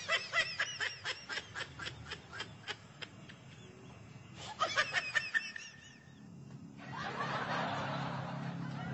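High-pitched snickering giggle in quick chirping pulses, in two spells. A steady soft rushing noise comes in near the end.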